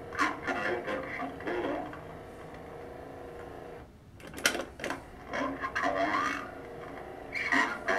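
The talking voice unit in a 1974 G.I. Joe Trouble Shooter's communicator box playing a recorded phrase too slowly, so the words come out drawn-out and unclear. Mechanical clicks about four seconds in as its button is pressed, and the slow voice starts again.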